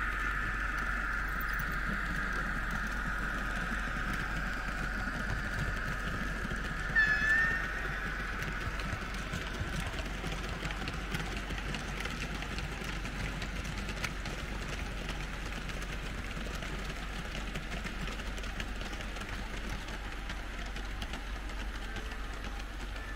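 Märklin H0 model trains running on the layout: a steady whir of motors and wheels on the track that slowly fades, with a brief high squeal about seven seconds in.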